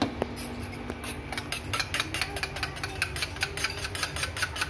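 Eggs being beaten with a spoon in a small stainless-steel bowl: a knock right at the start, then from about a second and a half in, quick metal clinks of the spoon against the bowl, about five a second.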